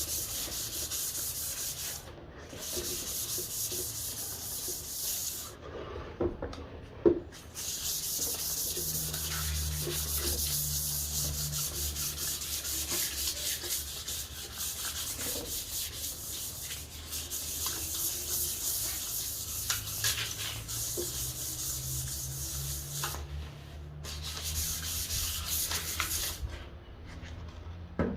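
Sandpaper rubbing back and forth over an ipê hardwood fruit bowl, a steady scratchy hiss broken by a few short pauses. There is a single sharp knock about seven seconds in.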